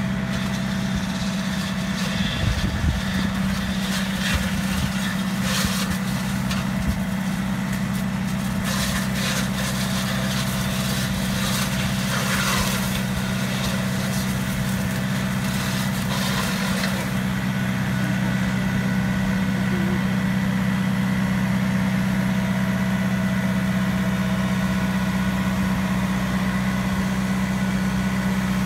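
Tractor engine running steadily under load as it drives a mechanical olive-pruning head along the hedgerow, with bursts of crackling through the first half.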